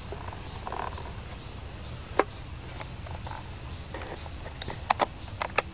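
Sharp plastic clicks and snaps of an airsoft claymore being reloaded with BBs and latched shut: one click about two seconds in, then a quick run of several near the end, over a steady low background noise.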